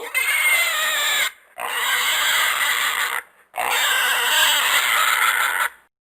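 Three long, harsh animal calls, each a second or two long, separated by short gaps.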